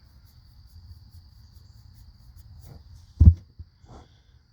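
A steady high-pitched trill over a low hum, with one dull thump about three seconds in and a few softer knocks around it.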